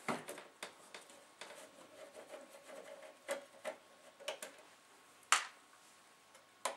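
Screwdriver backing out the screws that hold the top circuit board of a Denon DN-D4000 twin CD player: scattered faint clicks and ticks of the blade and the loosening screws, the sharpest about five seconds in.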